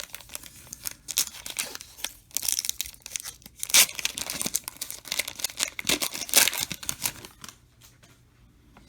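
Trading card pack wrapper being torn open and crinkled by hand, a dense run of crackling that dies down near the end.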